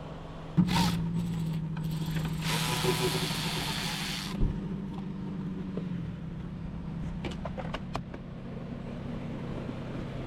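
Hands working at a car's partly removed front bumper and fender-well wiring over a steady low hum. The hum jumps up just under a second in. A rushing scrape lasts about two seconds in the middle, and a few light clicks come later.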